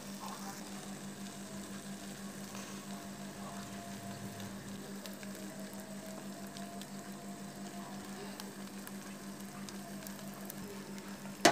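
Faint, steady sizzling and crackling from a stovetop pot used as a smoker, with tuna pieces on banana leaf over smouldering coconut shell, rice, sugar and jasmine tea.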